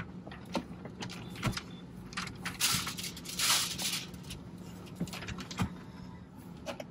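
Window tint film being handled and pressed by hand onto wet car window glass: light rustles and taps, with two short hissy rustles around the middle. A faint steady low hum runs underneath.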